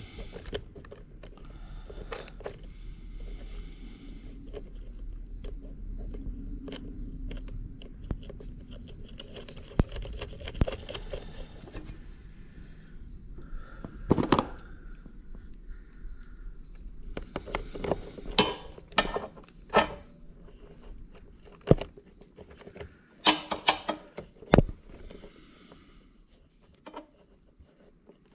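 Scattered clicks and knocks from hand tools and small parts being handled during repair work, with quick runs of rattling clicks a little past halfway and again near the end.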